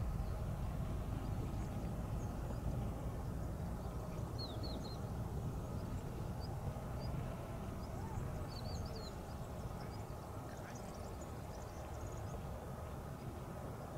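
Wind rumbling on the microphone outdoors, with a few faint, short, high bird chirps, mainly around four and a half and eight and a half seconds in.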